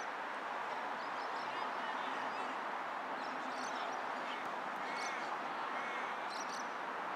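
Steady outdoor background noise with faint, distant shouts from soccer players and spectators, a couple of brief calls about five seconds in.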